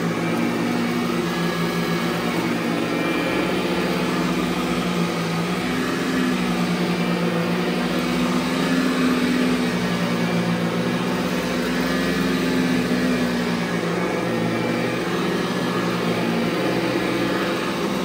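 Montgomery Ward SP8804 (a Eureka-built upright) vacuum cleaner running steadily while pushed across carpet, its motor hum wavering slightly in pitch.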